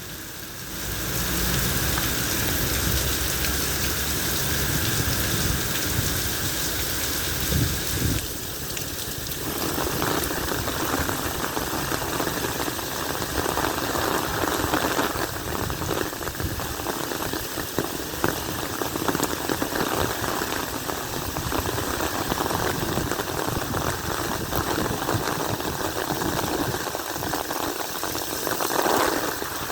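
Steady rain falling, a dense even hiss. About eight seconds in, a low rumble underneath fades out and the splashing in the middle of the range grows fuller.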